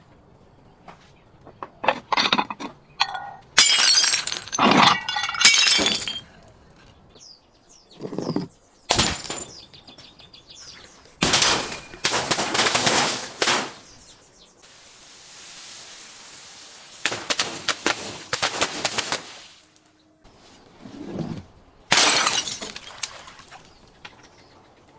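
Glass being smashed and crushed: repeated bursts of shattering and crunching with clinking shards, some a quick crack, others a second or two of grinding crunch. A steady hiss runs for a couple of seconds midway.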